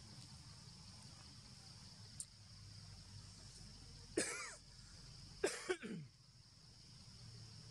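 Long-tailed macaques giving two short, harsh calls about a second apart, the second sliding down in pitch, over a steady high drone of insects.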